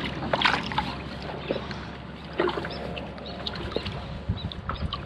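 Water sloshing and small irregular splashes as a redfish is held by the tail in the water alongside the boat and swims off.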